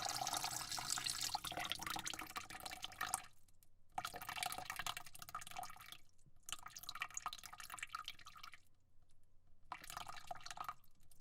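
Water sprayed into a bucket: a steady spray for about three seconds, then three shorter bursts with brief pauses between them as the spray is stopped and started.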